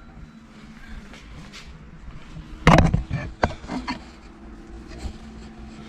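Loose metal engine parts being handled and set down: a loud cluster of clanking knocks a little under halfway through, then a few lighter clinks, over a faint steady background.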